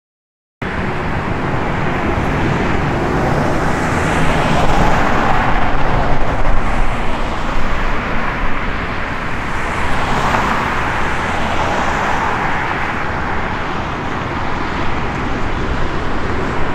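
Road traffic: cars passing one after another, their tyre and engine noise swelling as they go by about four to seven and ten to twelve seconds in, over a steady low rumble. The sound starts abruptly after a short silence.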